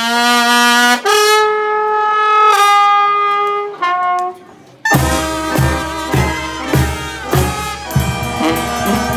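Mexican brass band (banda) of trombones, trumpets, clarinets and tuba. It plays a few long held brass chords, then about five seconds in the full band comes in with bass drum and snare beating a steady rhythm.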